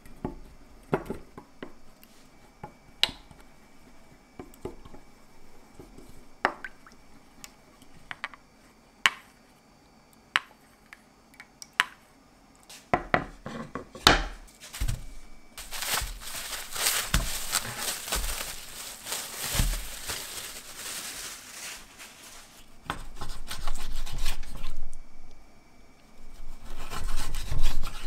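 A wooden spoon taps and scrapes against a stainless steel bowl while stirring a thick sauce, then a wooden cutting board is set down on a wooden table with a thump. After a stretch of rustling noise, a knife slices through raw chicken thigh on the wooden board.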